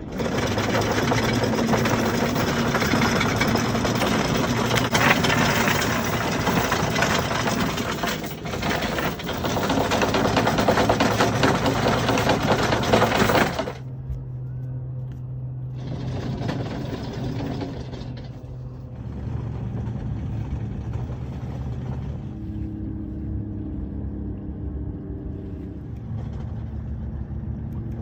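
Anchor chain paying out through an electric anchor windlass: a loud, dense metallic rattle with the motor's hum beneath it, which stops suddenly about halfway through. A much quieter steady low hum follows, with a brief rushing noise about two-thirds of the way in.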